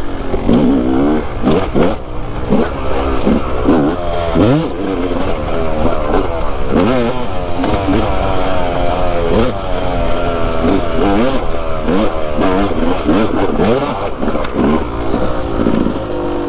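2020 Yamaha YZ250 single-cylinder two-stroke dirt bike engine being ridden hard, revving up and dropping back again and again, its pitch rising with each burst of throttle.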